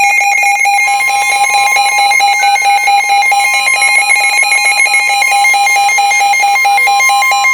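Midland WR-120 weather radio sounding its loud electronic alert alarm, a rapidly alternating warble of tones. A steady tone near 1 kHz, NOAA Weather Radio's warning alarm tone, joins about a second in. Together they announce a severe thunderstorm warning.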